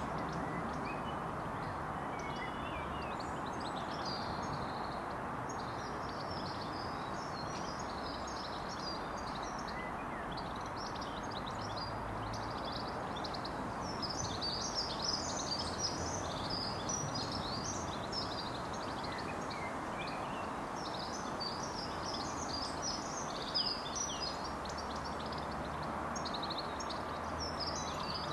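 Birds singing in many quick chirps over a steady low rumble from a Class 66 diesel locomotive's two-stroke V12 engine working a freight train some way off.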